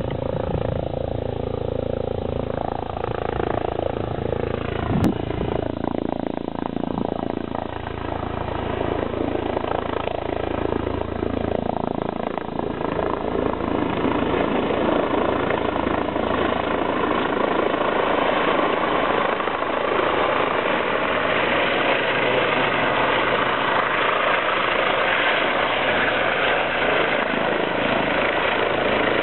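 Eurocopter EC135 rescue helicopter approaching and then hovering low, a continuous rotor and turbine noise that grows fuller and slightly louder about halfway through and then holds steady.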